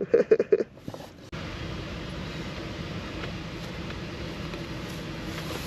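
A few short vocal sounds, then a steady low mechanical hum that comes on abruptly a little over a second in and holds level.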